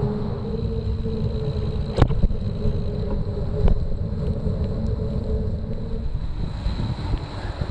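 Wind rushing over the microphone and tyre noise from a bicycle riding on a wet path, with a steady hum that stops about six seconds in. Two sharp knocks come about two and three and a half seconds in.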